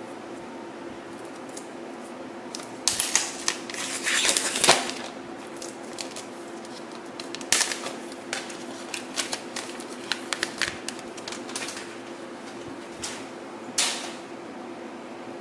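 Clear plastic protective film crinkling and crackling as it is handled and peeled off the back of an iPad 2: a dense run of crackles and clicks about three to five seconds in, then scattered crackles, over a steady low hum.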